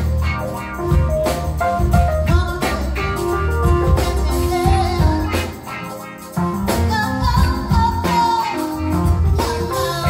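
Live soul band playing: keyboard, electric guitar, drums and tambourine, with a woman singing. The music dips briefly in loudness about six seconds in, then comes back in full.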